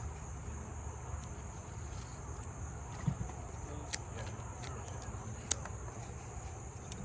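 Crickets chirping steadily in the background, with a few sharp clicks, the loudest about five and a half seconds in.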